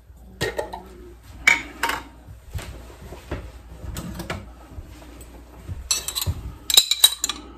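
Light kitchen clatter of a spoon tapping and scraping against containers, with a quick run of sharp, ringing clinks near the end, as minced garlic is dished out.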